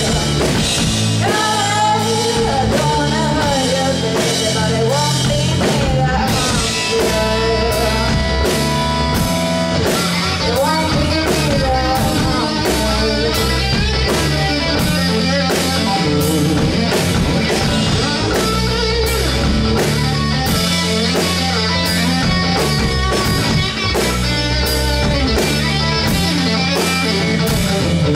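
A live rock band playing a song: vocals over a drum kit keeping a steady beat, with electric guitar.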